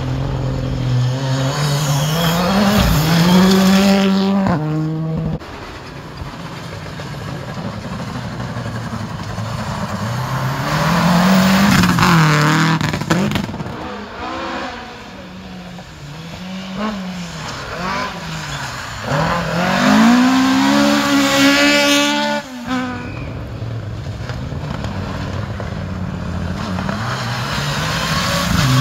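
Mitsubishi Lancer Evolution rally car's turbocharged four-cylinder engine at full throttle on a gravel forest stage, drawing closer. The revs climb in repeated rising sweeps, then drop as the driver lifts off or changes gear for the bends. One sweep cuts off abruptly about three-quarters of the way through.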